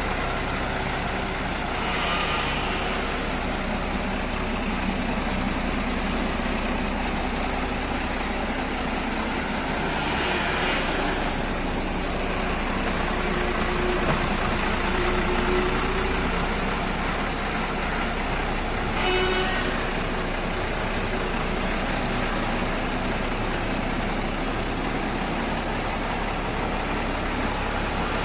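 Truck engine running steadily with road noise while driving. Three short horn toots sound over it: one a couple of seconds in, one about a third of the way through, and the clearest about two-thirds through.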